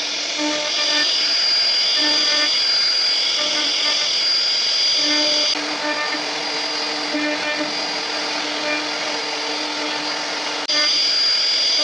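CNC router cutting a design into mahogany: a steady high spindle whine over shifting, stop-start motor tones as the machine moves. It grows louder about a second in, drops back a little past halfway, and steps up again near the end.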